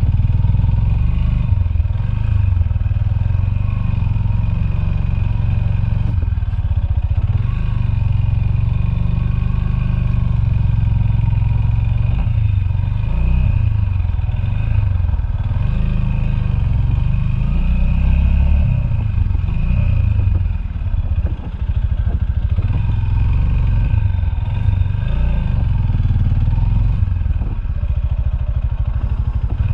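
Motorcycle engine running steadily while riding, its level dipping briefly about two-thirds of the way through.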